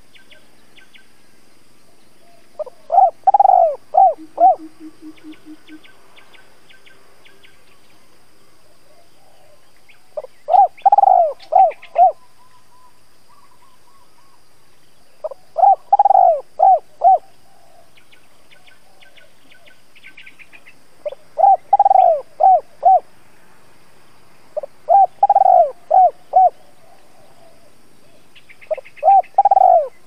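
A spotted dove cooing its song six times, several seconds apart. Each phrase is a long swelling coo followed by two or three short clipped notes. This is the calling song a caged decoy dove uses to draw wild spotted doves.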